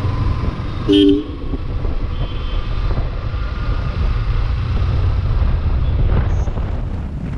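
A single short vehicle horn toot about a second in, over a steady low rumble of a running vehicle.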